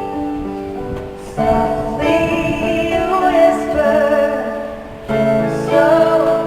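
Live band playing a slow ballad, with a woman singing long, wavering notes over sustained chords. New chords strike about a second in and again about five seconds in.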